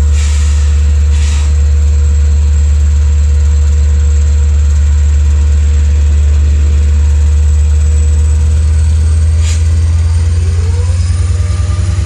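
LIRR diesel locomotive of a C3 bilevel train running at the platform with a loud, steady low drone. Short hisses come twice near the start and once more later. About ten seconds in, a rising whine begins and the drone starts to pulse as the train starts to pull away.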